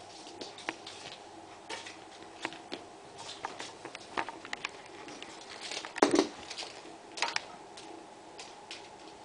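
Kittens' paws and claws tapping and skittering on a wooden floor in irregular light clicks, with one louder thump about six seconds in.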